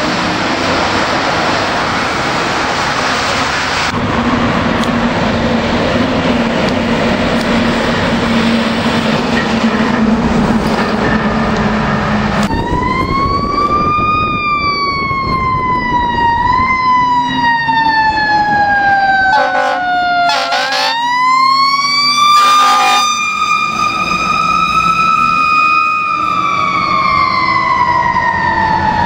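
Road traffic noise with a steady low hum for the first twelve seconds or so. Then a fire engine's mechanical Q-type siren winds up, coasts slowly down in pitch, winds up again, holds, and begins to fall, with a few short air horn blasts in the middle.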